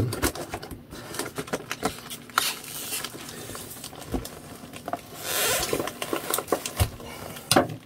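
A cardboard shipping box being pried at and handled: irregular scrapes, taps and rustles of cardboard, with a longer scraping rasp about five seconds in.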